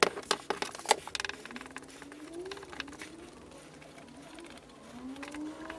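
Wooden blocks clicking and knocking as they are handled on a workbench, loudest in the first second. A faint, low wavering tone rises and falls twice over the quieter rest.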